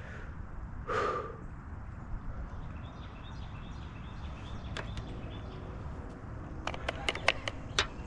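A short breathy grunt about a second in, over steady low wind noise. Near the end comes a quick run of sharp clicks, like metal climbing gear knocking together.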